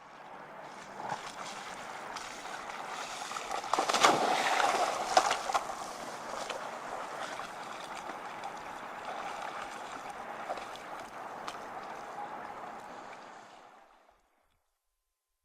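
Water rushing and splashing, swelling to a louder burst of splashes about four seconds in, then running on steadily before fading out.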